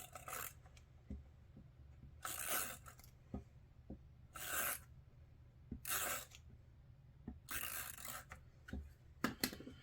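Adhesive being applied to a piece of paper cardstock in about six short scratchy strokes, each about half a second long, spaced a second or two apart.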